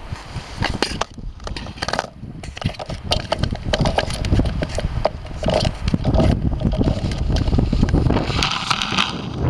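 Camera sliding across clear lake ice: a continuous low rumble of its body rubbing over the ice, with many small clicks and ticks throughout.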